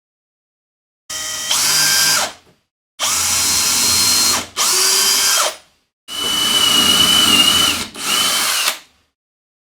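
A power drill run in five short bursts, each about one to two seconds long. The motor whines up to speed at the start of each burst and winds down at the end, as when drilling or driving screws into plywood.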